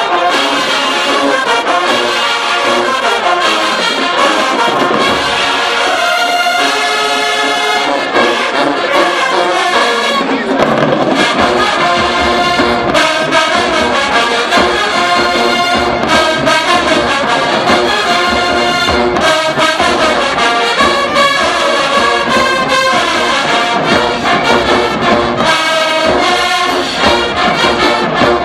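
HBCU marching band playing loudly, its brass section of trombones and trumpets carrying the tune, with the drumline coming in about ten seconds in.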